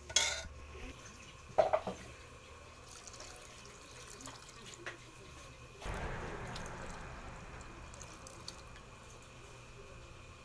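Two sharp knocks near the start, then about six seconds in, water poured from a small bowl into a pan of mung bean stew, a pour that fades out over about two seconds.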